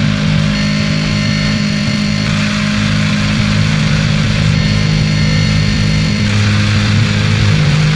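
Dark ambient noise soundscape: low steady droning hum under a dense hiss, with a thin high tone held over most of it. The deepest part of the hum grows stronger about six seconds in.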